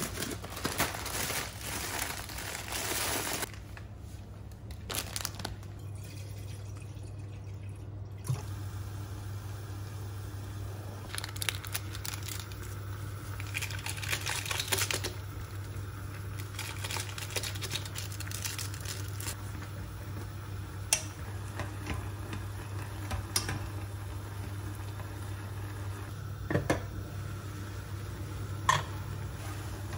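Instant noodles boiling in a saucepan on a gas burner over a steady low hum. Seasoning packets crinkle as they are handled and emptied into the pot, and a few sharp knocks sound later on.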